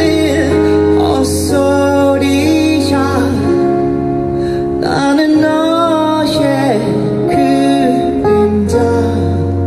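Male vocalist singing live into a handheld microphone over band accompaniment with a held bass line, amplified through the stage sound system.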